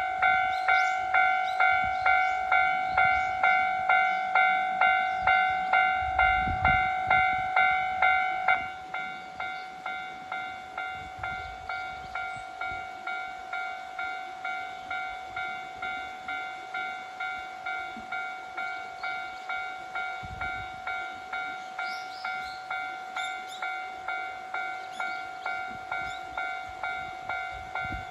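Japanese railroad crossing alarm ringing, a pitched electronic ding repeating about twice a second. About eight and a half seconds in, the alarm drops sharply in volume and keeps ringing more quietly.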